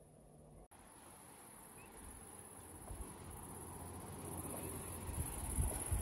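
Insects, crickets or similar, trilling steadily in a high, even band, faint. Near the end, wind starts to rumble on the microphone.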